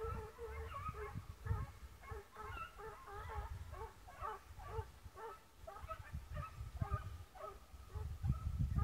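Swiss hounds baying: a faint, steady run of short pitched yelping calls, about two a second. A low rumble sits underneath and grows louder near the end.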